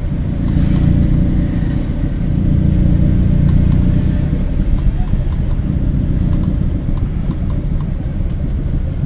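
Steady low rumble of a vehicle driving along a town street, heard from on board: engine and road noise, a little louder in the first few seconds.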